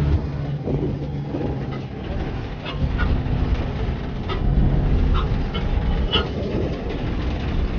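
Steady low rumble of an open-sided tour vehicle driving over a rough road, with a few short, high calls cutting through in the middle.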